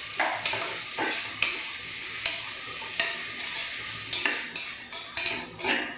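Onion, ginger-garlic paste and chopped tomato sizzling in hot peanut oil in a pressure cooker, stirred with a spoon that scrapes and clicks against the pot about once a second.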